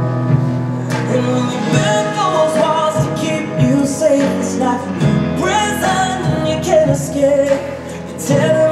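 A song with singing and instruments playing from a vinyl record on the ANGELS HORN H00501 record player, heard through its bookshelf speakers.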